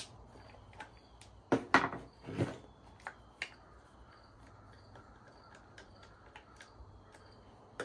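Plastic parts of a cordless mini chainsaw clicking and knocking as the small front hand guard is pushed and fitted onto the saw's body on a wooden bench. There are a few sharp knocks about one and a half to two and a half seconds in, then only light scattered ticks.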